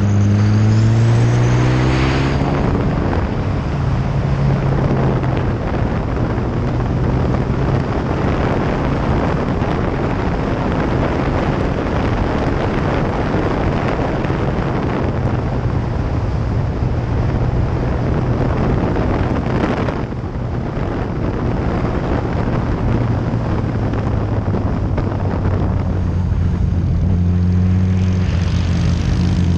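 Kawasaki ZX-14R's inline-four engine running under way. Its note rises in pitch as it accelerates in the first couple of seconds and again near the end. Heavy wind rush on the mounted camera dominates through the middle.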